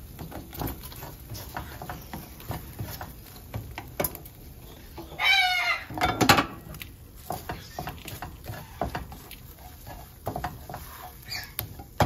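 A spatula scraping and tapping against a frying pan as scrambled eggs are stirred, a run of small clicks and knocks. A parrot gives one short squawk about five seconds in.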